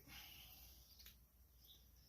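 Near silence: faint background hum with one faint click about a second in.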